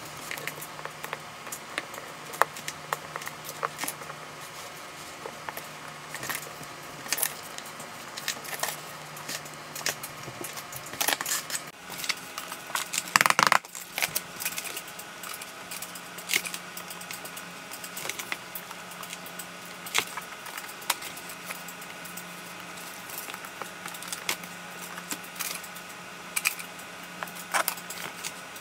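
Marble subway tiles being set by hand into thinset, giving scattered clicks and taps of stone against stone, with a louder clatter of knocks in the middle. A steady low hum runs underneath.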